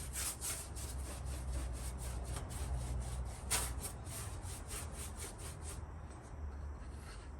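A brush scrubbing rust converter onto rusty sheet steel in quick back-and-forth strokes, about four or five a second, stopping about six seconds in.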